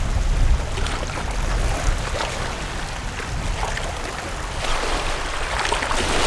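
Steady wash of small waves and moving water in shallow bay water, with a low rumble underneath.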